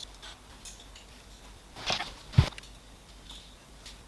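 Light metallic clicks and clinks of an Allen key working the bolts on the 3D printer's metal frame, with two louder knocks just past halfway, the second one the loudest, with a dull thud.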